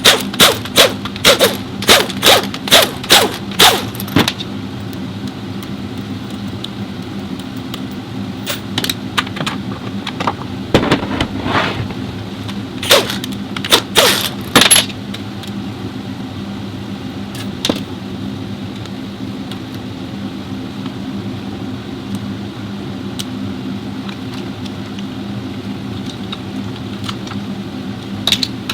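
A run of sharp metallic knocks, about two a second for roughly four seconds, then another scattered group around the middle, over a steady machine hum.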